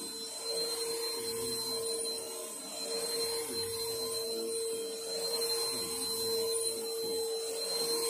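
Bissell Helix Power Force upright vacuum cleaner running on carpet, its motor giving a steady whine. The sound swells and eases a little as it is pushed back and forth.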